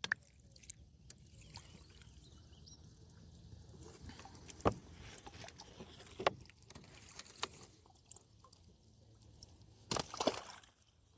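Quiet water sloshing around a small fishing boat, with scattered light knocks and clicks; a louder clatter about ten seconds in.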